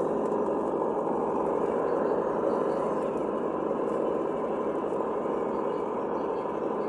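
Simulated engine sound from the Reely sound module on a Traxxas TRX4 Ford Bronco RC crawler, running steadily.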